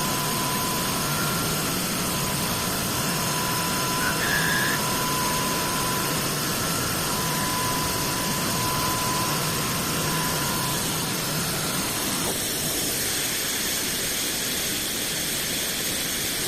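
Dahlih CNC machine running: a steady mechanical noise with a held whine, a brief higher tone about four seconds in, and the sound thinning out about twelve seconds in.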